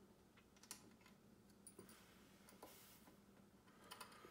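Near silence, with a few faint small clicks and taps from a screw being worked into a brass standoff under a circuit board. Several of the clicks come close together near the end.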